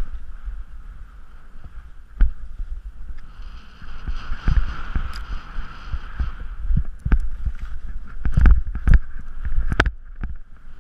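Fast descent through off-piste snow: wind buffeting a body-worn microphone with a low rumble, a steady hiss of sliding on snow, and sharp thuds and clatters from bumps, most of them in the last few seconds.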